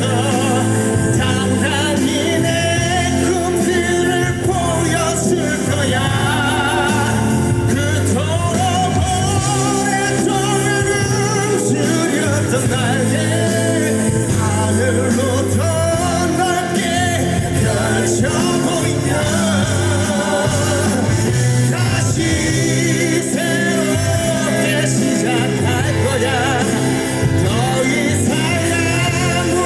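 Live band music with a male lead vocal singing a Korean rock ballad, played at full volume without a break.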